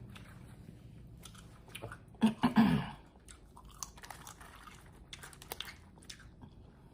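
Close-miked chewing and biting of food, with small crunches and wet mouth clicks, and a short voiced 'mm' sound about two seconds in.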